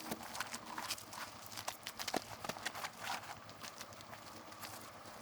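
Footsteps crunching on loose gravel, an irregular run of short clicks and crunches.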